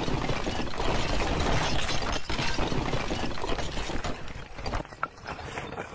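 Sound effect of a brick wall collapsing: a dense rumbling clatter of tumbling bricks and rubble that thins out about five seconds in, leaving a few last knocks.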